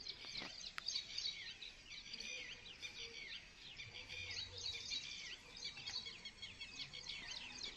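Faint chorus of small birds chirping, many short high notes repeating and overlapping without a break.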